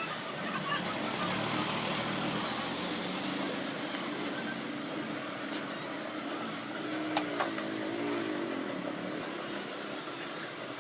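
Background road traffic: a steady hum of passing vehicles, with one engine note wavering up and down over a couple of seconds, and two sharp clicks about seven seconds in.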